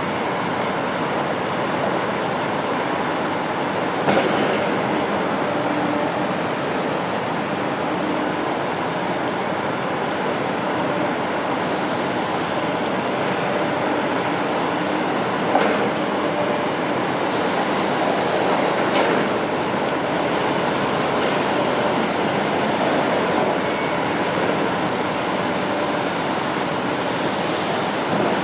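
Heavy construction machinery running steadily, a diesel engine drone under a constant rumble, with a few sharp clanks, one about four seconds in and two more past the middle.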